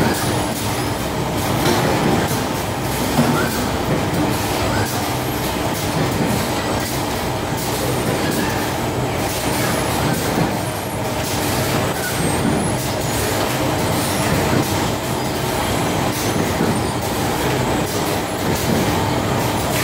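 Industrial bakery dough-loading lines running: a loud, steady mechanical din of conveyor belts and electric gear motors with a constant hum and small irregular knocks.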